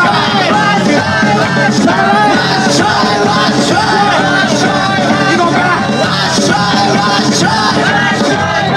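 Live band playing an upbeat song, with two men singing and shouting into microphones over washboard-and-cymbal percussion and band accompaniment.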